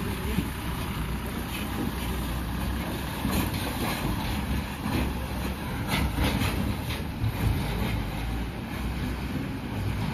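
Mahindra Bolero pickup's diesel engine running under load as the truck tries to climb an icy, slushy slope, with scattered scraping noise from tyres struggling for grip. It is stuck and fighting for traction.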